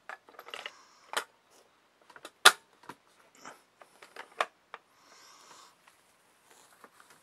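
Sharp plastic clicks and knocks from a Teddy Ruxpin toy's built-in cassette deck as a hand works its tape door and cassette, the loudest about two and a half seconds in. A short cloth rustle follows about five seconds in as the fabric back flap is pulled over the deck.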